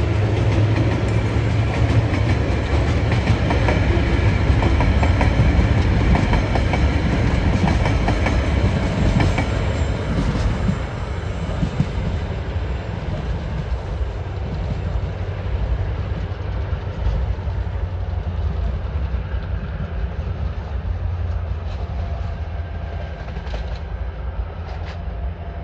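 Freight train of coal and container wagons rolling past on the climb, wheels clicking over the rail joints over a low steady drone. The sound eases after about eleven seconds, and a few sharper clicks come near the end.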